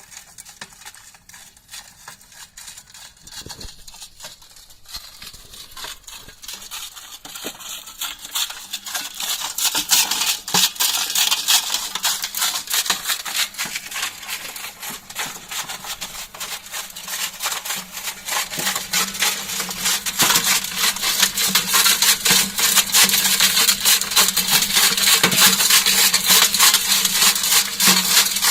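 Sand hissing and rattling through the mesh of a vibrating sieve driven by a Selni Nevers V1628 washing-machine motor. It starts quiet and grows steadily louder, and a steady low hum joins about two-thirds of the way through.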